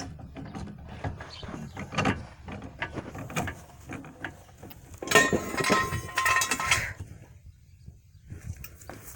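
Hand tools working on a car's rear shock mount: scattered metal clicks and knocks, with a ratchet wrench clicking rapidly for about two seconds near the middle.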